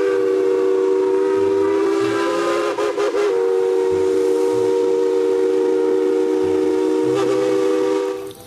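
Train whistle: a chord of several tones held steady for about eight seconds. It wavers briefly about three seconds in and cuts off near the end.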